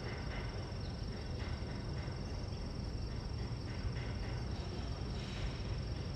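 Outdoor ambience with insects chirping, a thin steady high-pitched whine and a low rumble underneath.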